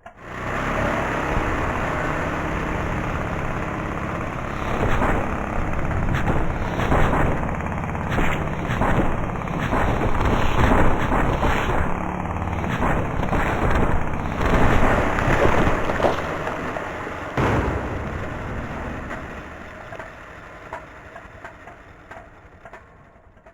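Washing machine running hard, likely in a spin, with many loud knocks and thuds through the middle, then slowing and fading away over the last few seconds as it winds down.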